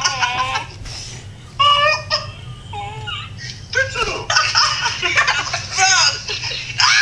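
Several people laughing hard in high-pitched bursts, mixed with a few words, with a quieter lull about a second in before it picks up again.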